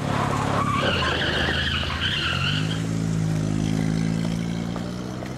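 Car tyres squealing briefly, then the car's engine rising in pitch about two and a half seconds in and running on steadily.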